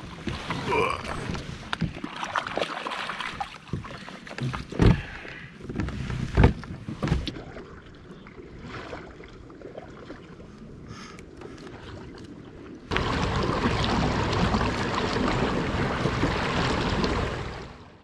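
Knocks and thumps on a small boat on the water, two of them loud, then a quieter stretch. About two-thirds through, a loud, even rush of noise sets in suddenly and fades out at the end.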